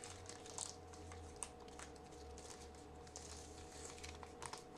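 Faint rustling and light ticks of trading cards and a foil pack wrapper being handled, over a low steady hum.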